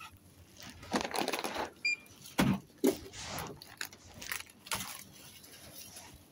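Metal wire shopping cart rattling and clattering in uneven bursts as it is pushed along, with a few knocks. A short electronic beep comes just before two seconds in.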